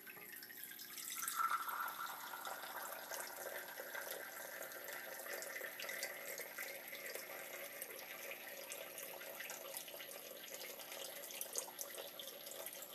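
Steady trickle of water from a reverse-osmosis/deionisation unit's tubing running into a concrete utility sink, with a faint pitch that rises slowly over the first several seconds.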